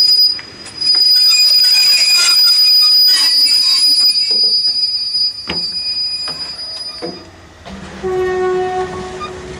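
Train carriage wheels squealing against the rails on curved track: a loud, steady, high-pitched screech that stops about seven seconds in. Near the end a short, steady, lower tone with overtones is heard for about a second.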